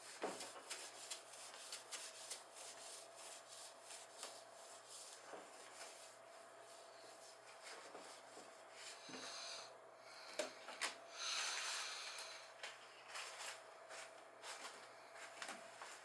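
Cloth wiping the top of a small fridge in many quick rubbing strokes, with a longer, harder stretch of rubbing partway through. A faint steady hum sits underneath.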